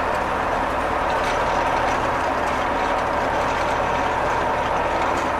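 Diesel engine of a self-propelled hay mower running steadily, heard from inside its cab.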